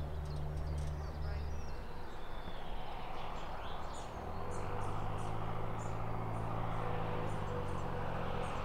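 A light aircraft's piston engine idles steadily close by for the first couple of seconds. Then the propeller drone of a low-wing single-engine plane on approach takes over, getting louder from about four seconds in, with faint high bird or insect chirps over it.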